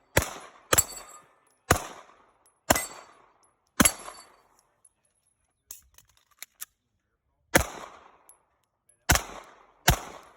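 Eight gunshots from a firearm fired during a shooting drill, each cracking sharply and then fading. Five come about a second apart, then there is a pause of nearly four seconds with a few faint clicks, then three more shots.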